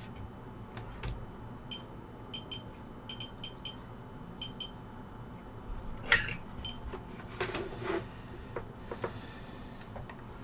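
Short electronic beeps from bench soldering equipment as its buttons are pressed, some single and some in quick pairs and runs. Small clicks and a louder clatter of tools about six seconds in.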